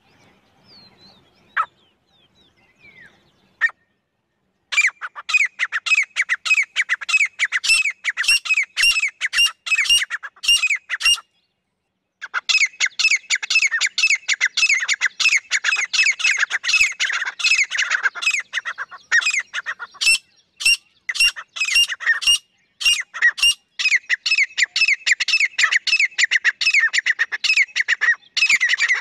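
Female grey francolin calling: a harsh series of quick, sharp notes repeated about three a second. The calling starts about five seconds in after a few faint sounds, breaks off for about a second near the middle, and then runs on more densely.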